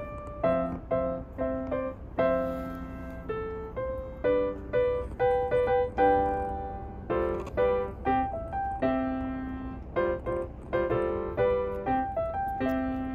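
Background piano music: a melody of separate notes, each fading out.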